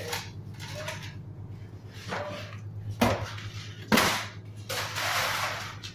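Fish, ice and plastic crates being handled in a fishing boat's fish hold: two sharp knocks about three and four seconds in and a longer rough scraping noise near the end, over a steady low hum.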